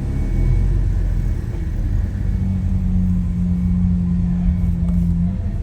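Lamborghini Aventador SV's naturally aspirated V12, with a Capristo exhaust, running at a steady low engine note while driving. A steady drone holds from about two seconds in until shortly before the end.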